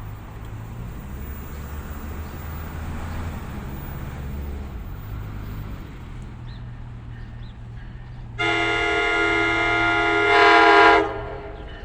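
An NJ Transit train horn sounds one long chord blast of about two and a half seconds, swelling louder just before it cuts off, over the steady hiss of heavy rain and a low rumble.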